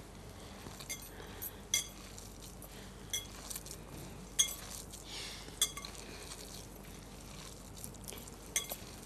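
Glass mixing bowl clinking as a hand kneads a moist corn kebab mixture inside it: about eight light, bright clinks, irregularly spaced, a second or so apart.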